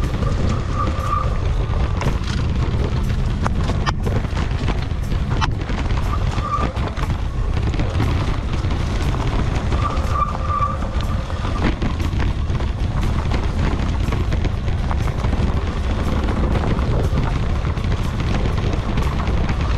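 Wind rumble on a bike-mounted action camera's microphone, with scattered knocks and rattles from an e-bike riding over a bumpy dirt trail, under background music.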